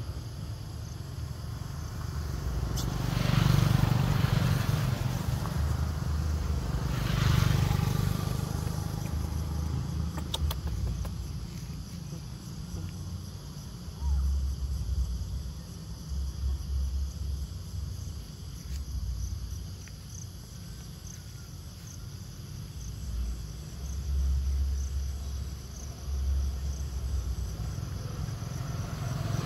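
Motor vehicles passing on a road, two of them swelling and fading about three and seven seconds in, over a steady low rumble.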